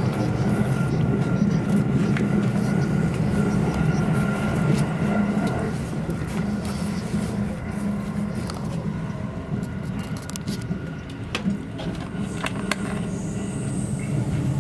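Running noise of an E217 series electric train heard inside a passenger car: a steady rumble of wheels on rail with a faint steady whine above it. The noise grows quieter about halfway through, then picks up a little, with a few sharp clicks near the end.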